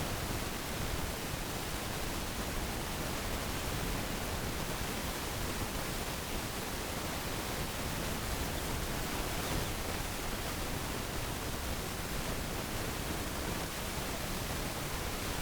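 Steady, even hiss of noise spread across all pitches, with no distinct calls, clucks or knocks.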